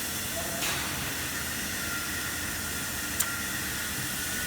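Steady hiss of factory machinery on a glass-processing line, with two sharp clicks, the louder one about three seconds in.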